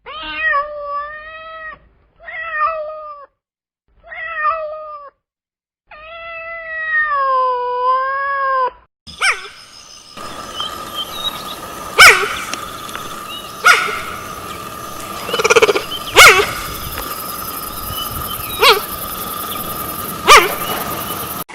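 Domestic cat meowing: three short meows, then a longer wavering one. After about nine seconds comes a noisier recording with a steady high hum and several short, sharp sounds.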